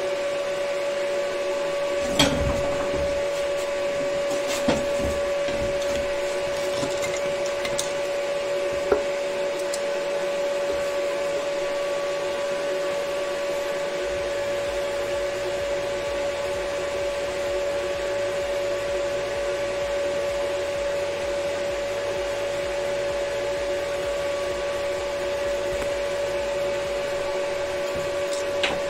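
A steady machine hum at one fixed pitch. A few light knocks come in the first nine seconds.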